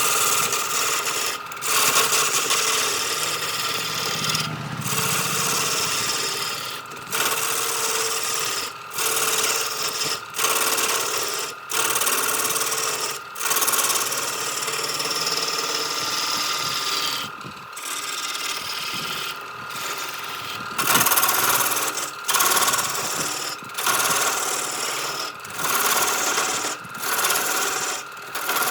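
An electric power tool runs at a steady speed with a constant high whine while its abrasive grinds against wood in repeated passes, broken by short gaps every second or two.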